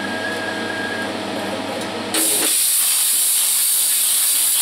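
CNC plasma cutter arc striking about two seconds in and cutting a square hole in a metal pulley: a sudden, loud, steady hiss that replaces a steady hum.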